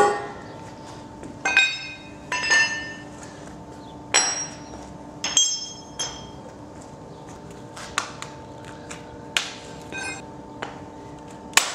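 Steel tow bar parts (the cross bar, side brackets and tow ball) set down one after another on a concrete floor: about ten metallic clanks and clinks, several ringing briefly.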